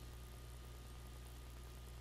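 Faint steady low hum with a soft hiss: room tone, with no distinct event.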